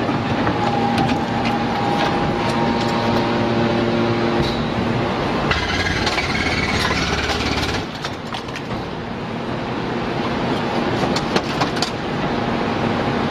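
Hydraulic scrap-metal baler-shear running, with a steady machine hum. A louder, rougher stretch starts about halfway through and drops off abruptly about eight seconds in, and a few sharp metal knocks come near the end.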